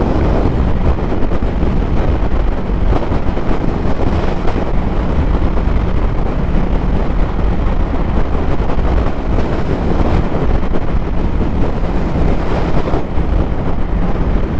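Cruiser motorcycle at highway speed: wind rushing over the microphone, with the engine's steady drone beneath.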